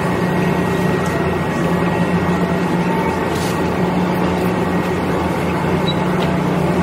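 Steady low mechanical hum of running machinery, unbroken throughout.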